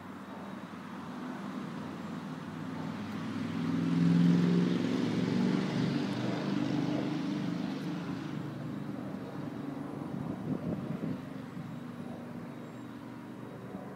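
A vehicle passing by: its engine and road noise swell, peak about four seconds in, then slowly fade away.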